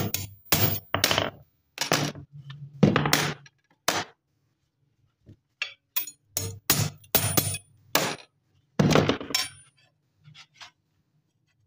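Hammer striking a steel sickle blade laid on a steel anvil block: sharp ringing metal blows in an uneven run, a pause of about two seconds, then a second run, ending with a few faint taps.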